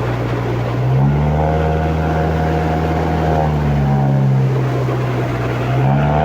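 Toyota 109 hp engine of an amphibious tyre-borne all-terrain vehicle running steadily while it floats, its engine speed rising about a second in and again near the end.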